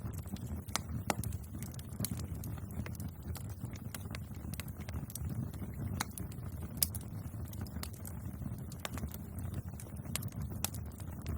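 Wood bonfire crackling: irregular sharp snaps and pops over a steady low rumble of the burning fire.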